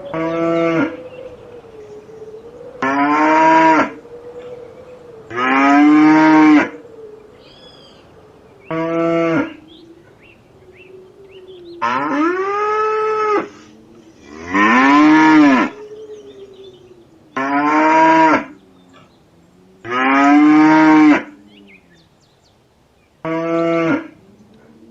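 Cattle mooing over and over: about nine loud, drawn-out moos a couple of seconds apart, with fainter lowing in between.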